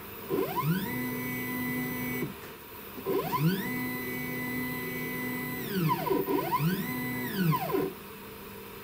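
CNC router's Z-axis stepper motor whining through three moves of an automatic probing cycle, lowering the cutter onto a touch plate and lifting it off. Each move rises in pitch, holds a steady tone, then falls away as the axis slows to a stop.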